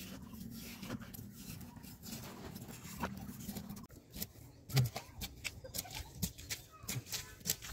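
A stick jabbing down into wet clay mud in a dug hole, giving a run of irregular soft thuds and squelching knocks in the second half, the strongest about five seconds in. Under the first half runs a steady low hum that stops about four seconds in.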